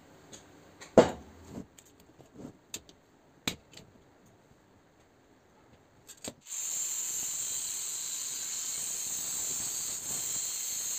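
A steel square tube handled and knocked on a workbench, with a sharp knock about a second in and a few light clicks. From about six seconds in, an angle grinder's cut-off disc cuts through the steel tube with a steady high hiss.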